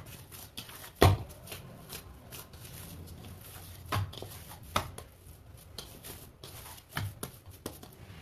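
Hands kneading and smoothing oiled bhatura dough in a steel bowl: soft squishing and rubbing, broken by several dull thumps as the dough is pressed and turned against the bowl, the loudest about a second in.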